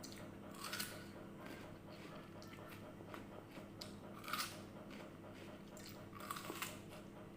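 Biting into and chewing crisp, juicy red water apples (wax apples): three crunchy bites, about a second in, midway and near the end, with quiet chewing between.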